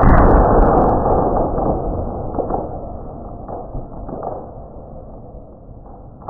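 A firework bursts loudly at the start, and its rumble dies away over several seconds, with a few fainter pops along the way.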